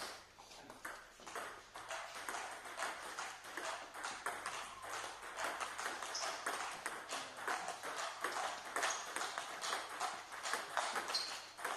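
Table tennis rally: the celluloid-type ball clicking sharply off the paddles and the table top, irregularly several times a second, with clicks from rallies at other tables in the hall mixed in.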